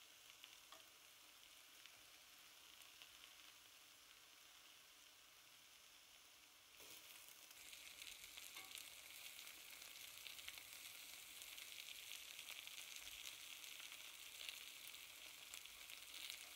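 Napa cabbage wedges frying in a pan: a quiet, steady sizzle with faint crackles, growing louder about seven seconds in.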